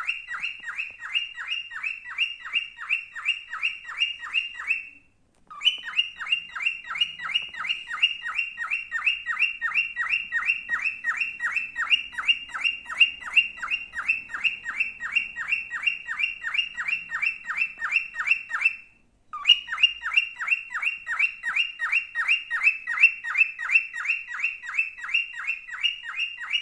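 Male cockatiel chirping: a fast, even string of short notes, each sliding downward, about five a second, broken by two brief pauses.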